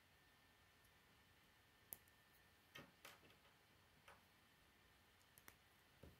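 Faint plastic clicks and taps of K'nex rods and connectors being handled and fitted together, about seven separate clicks scattered over a quiet background.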